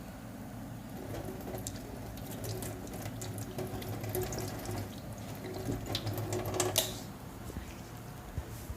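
Oiled hands rubbing and squishing over skin during a massage: a run of quick wet clicks and smacks that grows busiest six to seven seconds in, with a single sharper click near the end.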